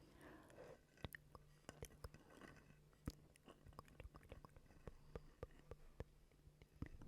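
ASMR mouth sounds close to the microphone: quiet, wet clicks and smacks of the tongue and lips, irregular, a few a second.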